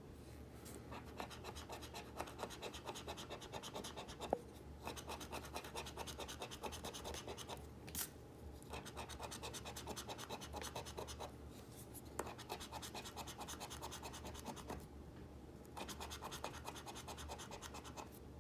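A metal coin scratching the latex coating off a paper lottery scratch-off ticket in quick, rapid strokes, in several runs broken by short pauses. There is one sharper click a little over four seconds in.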